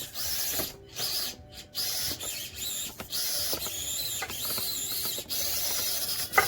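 Axial SCX24 Deadbolt 1/24-scale RC crawler's small electric motor and gears whining in stop-start bursts, the pitch wavering up and down, with a few light clicks and a sharp knock near the end.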